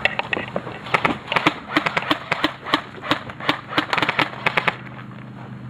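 Airsoft guns firing a quick run of sharp shots, about four or five a second, that stops shortly before the end.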